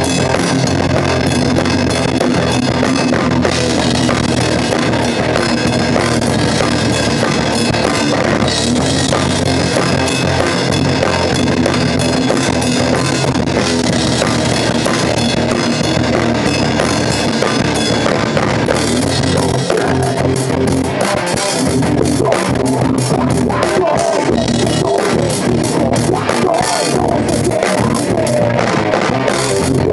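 A metal band playing a loud rock track with drum kit and electric guitar. The drum hits come through more sharply in the last third.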